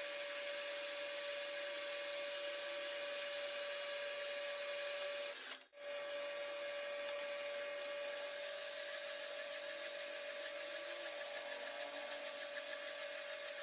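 A metalworking machine tool running steadily, a constant whine over a hiss of cutting. It cuts out for an instant about five and a half seconds in and then carries on.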